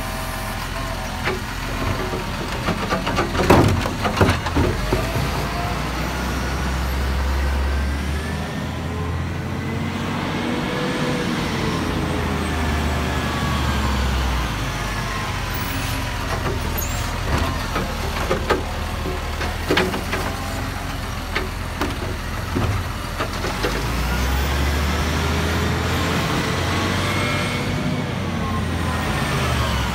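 Hino side-loader garbage truck at work: the lifter arm tips a wheelie bin, with a clatter of knocks about three to five seconds in. The diesel engine then revs up and down twice as the truck moves off along the street.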